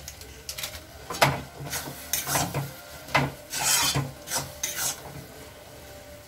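Steel spatula scraping against the inside of a steel kadai while stirring a thick tadka: a run of rasping strokes, about three a second, from about a second in, fading near the end.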